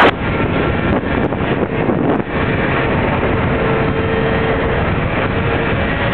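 A 50cc scooter under way, its small engine running at a steady cruising speed, heard from on board with wind rushing over the microphone.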